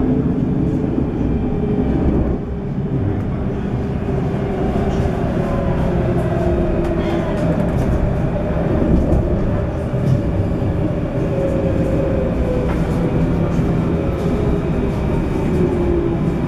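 Steady running noise heard from inside a moving tram: wheels rolling on the rails and a low rumble, with a faint electric motor whine that drifts slowly in pitch.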